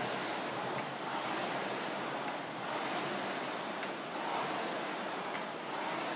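Air-resistance rowing machine's fan flywheel whooshing, swelling with each pull stroke about every two seconds.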